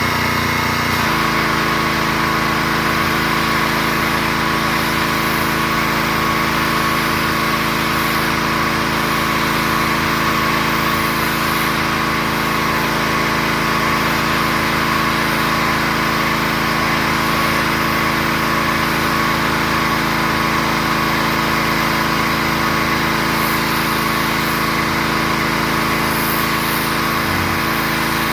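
Gasoline pressure washer engine running steadily under load. Its note shifts about a second in, then holds.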